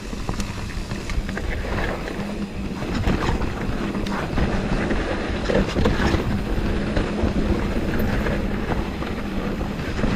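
Riding noise from a mountain bike descending a dirt trail: wind buffeting the camera microphone, with the tyres rumbling over the ground and the bike rattling and clicking over bumps.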